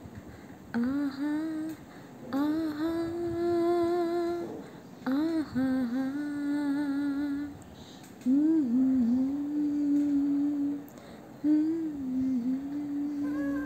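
A young woman singing a wordless melody solo, without accompaniment, in several held phrases that slide and waver in pitch.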